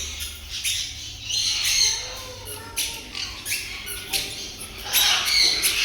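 Many caged aviary birds squawking and chattering, short sharp calls overlapping one another, growing louder about five seconds in.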